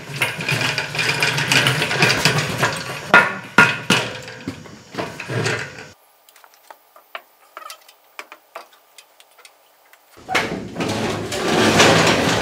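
Shop work noise: a busy run of knocks, clanks and taps from tools and parts. It drops to a few faint ticks for about four seconds in the middle, then picks up again.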